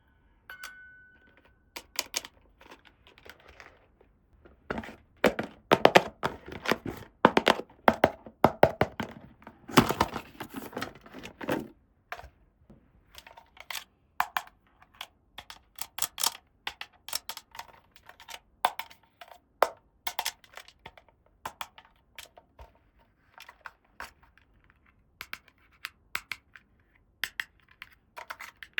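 Small plastic toy pieces from a miniature doll house play set clicking, tapping and knocking as they are handled and fitted together, in an irregular run of sharp clicks that comes thickest a few seconds in and thins out toward the end.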